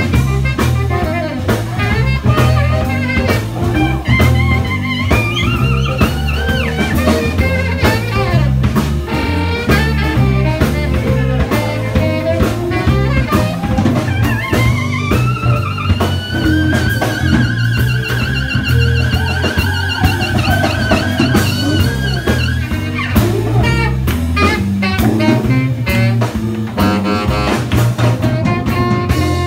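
Live blues-jazz band playing an instrumental passage: drum kit and bass keep a steady beat under saxophone and harmonica lines, with one long, wavering held note in the middle.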